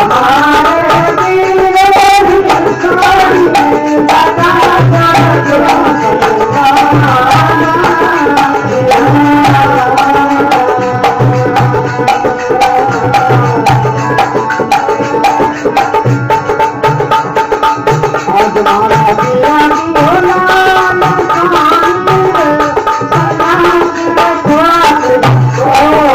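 Instrumental passage of a Marwari folk bhajan: tabla-style hand-drum strokes, with repeated deep bass strokes, under a sustained, wavering melody line.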